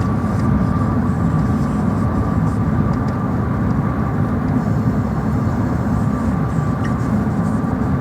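Motor vehicle running, heard from inside: a steady low rumble with a faint constant whine.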